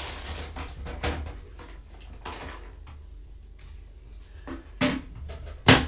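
Knocks and rustling as a bag of dry kitten food is handled while the kittens are being fed: one knock about a second in, another just before five seconds, and the loudest, sharp thump near the end.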